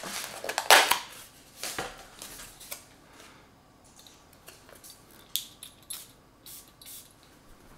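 Paper and cardboard packaging rustled and crinkled as a perfume bottle is unwrapped, followed later by a few short hissing sprays from the perfume atomizer onto a paper card.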